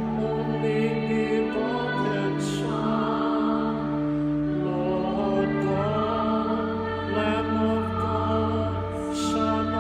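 Sacred music sung during the Mass: a singing voice over long held organ-like chords, the bass note dropping lower about six seconds in.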